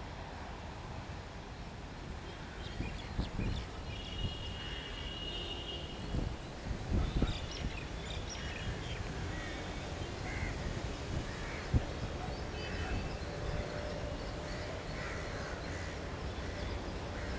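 Crows cawing now and then over a steady low outdoor rumble, with a few dull knocks about seven seconds in and a sharp one about twelve seconds in.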